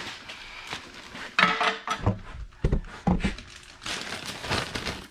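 Parts being handled while working on a car's front end: a short scraping rattle about a second and a half in, then several dull thuds and knocks, then more scuffing.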